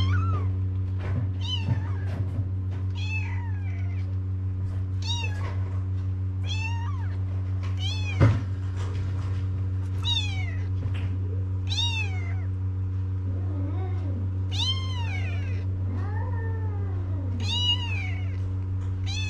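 Several young kittens mewing: high, thin cries that rise and fall, repeated about once a second and sometimes overlapping, the kittens crying for their mother to nurse them. A steady low hum runs underneath, and there is a single short bump about eight seconds in.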